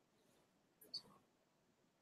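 Near silence: room tone, with one faint short click about a second in.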